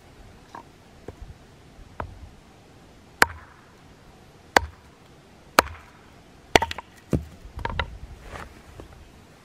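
Mora camp axe, a lightweight plastic-handled hatchet, chopping and splitting a small piece of firewood on a chopping block: a series of sharp chops about a second apart, the loudest in the middle, with lighter wooden knocks before and after.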